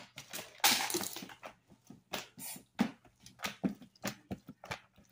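Blue slime packed with styrofoam balls being squeezed and kneaded by hand, giving a run of irregular crackles and squelching pops, loudest about a second in.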